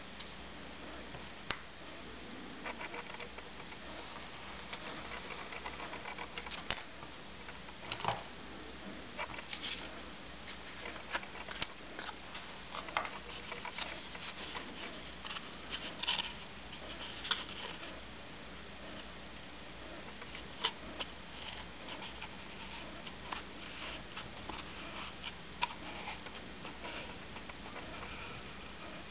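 Light, irregular clicks and short scrapes of a Tyson balsa stripper's blade cutting balsa ribs against an aluminum template, over a steady high-pitched whine of two tones.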